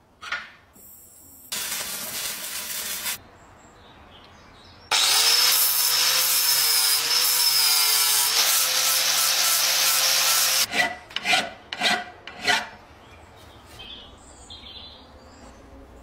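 Electric angle grinder with an abrasive disc grinding a metal part held in a vise, for about five seconds, its motor pitch wavering as the disc loads and unloads. A shorter hissing burst of abrasive work comes before it, and a few sharp scrapes or knocks come just after it stops.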